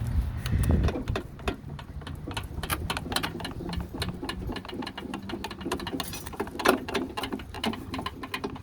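Lawnmower front wheel being wiggled off its axle spindle: a fast, uneven run of clicks and rattles, with a heavier knock in the first second.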